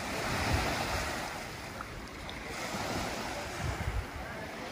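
Small waves washing onto a sandy beach in a steady hiss, with wind buffeting the microphone in low rumbles about half a second in and again near the end.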